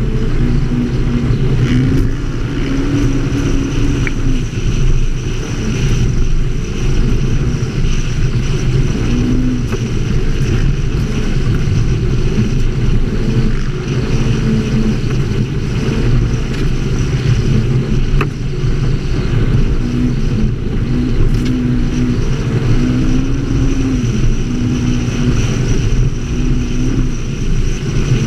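ATV engine running under way, heard from on board, its revs rising and falling, with a steady rush of noise over it.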